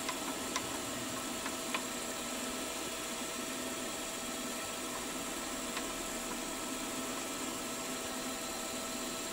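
Milling machine running with a steady hum, its end mill taking a light cut along the edge of a steam-chest casting. A few faint ticks sound in the first couple of seconds.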